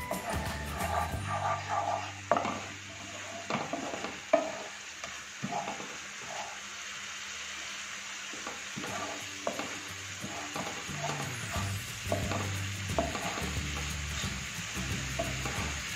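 Spice masala paste sizzling as it fries in a nonstick frying pan, stirred and scraped continuously with a wooden spatula, with a few louder knocks in the first five seconds.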